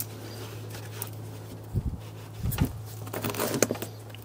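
Scattered metal clicks and knocks as a serpentine belt tool is levered against the auto tensioner and knocks into the engine's fan nut, with a few low knocks about two seconds in and a run of rattling clicks a little after three seconds. A steady low hum runs underneath.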